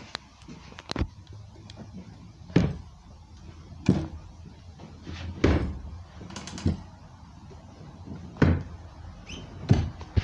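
A string of dull knocks and thumps, about seven, a second or so apart, from someone moving about inside a bus, over a faint low hum.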